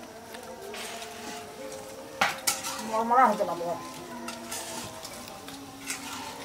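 Radish-flower pakoras frying in hot oil in a wok, with a steady sizzle and the clatter of a metal utensil against the pan about two seconds in. A short rising-and-falling call sounds just after the clatter.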